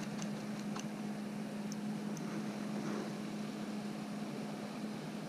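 Electric trolling motor humming steadily while it holds the bass boat in place on GPS spot-lock, with a few faint light ticks.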